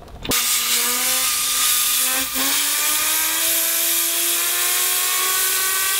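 Compressed air hissing from a blow gun onto a fidget spinner, the spinner's whine climbing steadily in pitch as it spins up, with a brief dip a little after two seconds.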